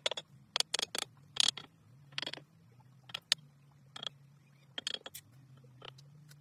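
Mason's trowel scraping wet mortar and clinking against bricks as they are set in place: short, sharp scrapes and clinks in small clusters every second or so, over a faint steady low hum.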